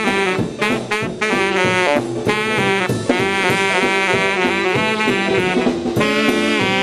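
A rock and roll band playing, with a saxophone carrying the melody in phrases of held and repeated notes over bass and light drums.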